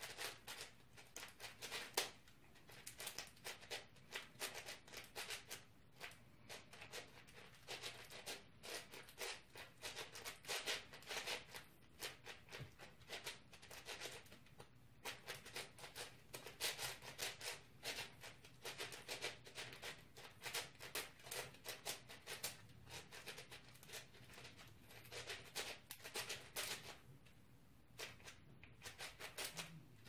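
A big-layer speedcube being turned rapidly by hand: a dense run of quick plastic clicks and clacks as the layers turn, with a few short pauses.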